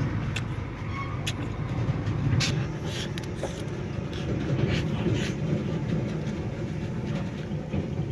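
Mouth sounds of a person eating chili peppers by hand: irregular short clicks and smacks about once a second, over a steady low rumble.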